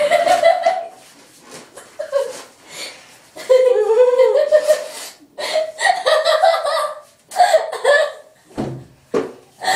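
Several people laughing in repeated bursts, mixed with some indistinct talk.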